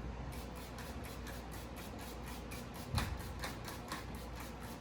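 Broom sweeping a floor in quick, even strokes, about four or five a second, with one thump about three seconds in.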